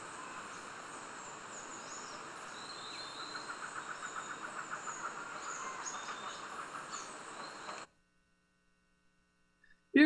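Rainforest ambience: a steady hiss with scattered high bird calls, joined about three seconds in by a fast pulsing trill. It cuts off abruptly about two seconds before the end, leaving near silence.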